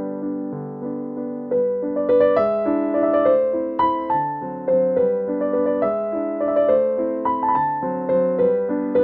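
Background instrumental music: a melody over held chords, its notes struck more often after about two seconds.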